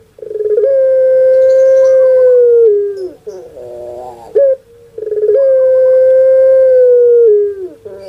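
Puter pelung dove (a domestic ringneck dove, Streptopelia risoria) cooing: two long calls, each a few short rising notes followed by a loud held note of about two seconds that drops in pitch at its end.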